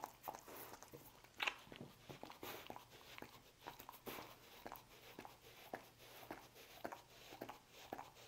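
A dog licking and smacking as it eats scraps of roast beef off a rug: a faint, irregular string of short wet clicks, the loudest about a second and a half in.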